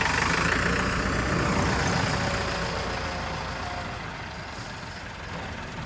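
Farm tractor's diesel engine running, loudest at first and easing down over a few seconds.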